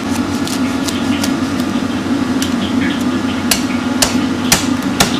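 Meat cleaver chopping through a raw goose onto a wooden chopping block: a series of sharp chops that come about every half second and grow stronger in the second half, over a steady low hum.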